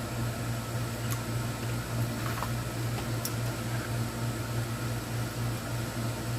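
Room air conditioner running with a steady hum and hiss, with two faint small clicks about a second and three seconds in.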